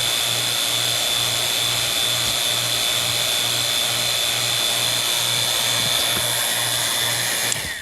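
Refrigeration vacuum pump running steadily while evacuating an air-conditioning system after a coil change, a constant high whine over a low hum that pulses about two or three times a second. The noise cuts off suddenly near the end.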